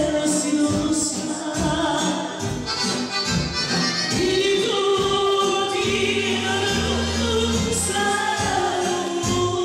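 A woman singing into a handheld microphone over amplified backing music with a steady beat.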